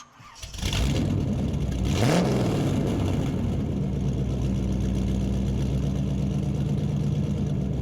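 Car engine starting and catching about half a second in, revving up briefly around two seconds in, then settling to a steady idle.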